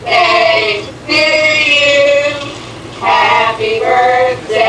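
Women and children singing together in three drawn-out sung phrases, with short breaks between them.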